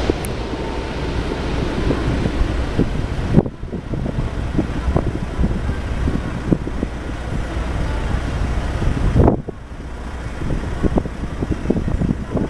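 Airbus A330-200 jet engines rumbling as the airliner lands, with wind buffeting the microphone. The noise drops suddenly about three and a half seconds in and again about nine seconds in.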